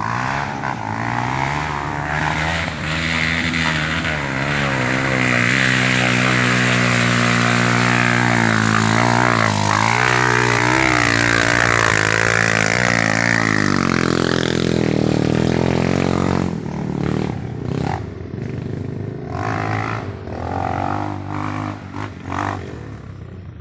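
Dirt bike engine revving hard under load on a steep, rutted uphill climb, its pitch rising and falling again and again. About 16 seconds in, the engine drops back and the sound breaks into quieter, uneven bursts.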